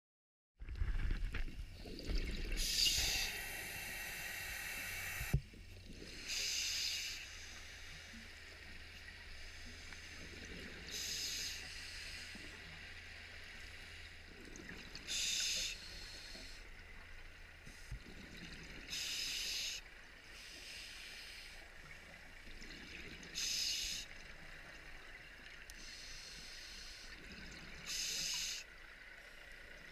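Scuba diver breathing through a regulator underwater, heard through a GoPro's waterproof housing: a hiss with each breath about every four seconds, over a steady low hum. A single sharp click about five seconds in.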